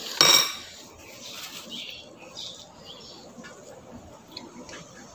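A ceramic plate clinks once, loudly and briefly, just after the start. Then come soft eating sounds: chewing, and small clicks as fingers pick food from the plate.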